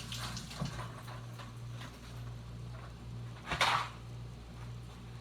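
Kitchen handling sounds: light clinks and knocks of cookware and utensils, with one louder clatter about three and a half seconds in, over a steady low hum.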